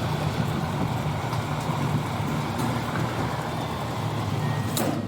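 Fuel dispenser pumping petrol into a car's tank: a steady low hum under an even hiss, with a sharp click near the end.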